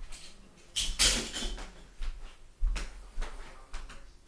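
A handful of sharp knocks and clacks, about five in four seconds with the loudest about a second in: small hard objects being handled and set down on a tabletop.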